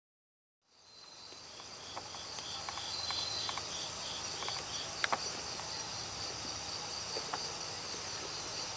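A night chorus of crickets and other singing insects: several steady high trills overlapping, with one insect chirping in regular pulses, and a few faint clicks. It fades in from silence about a second in.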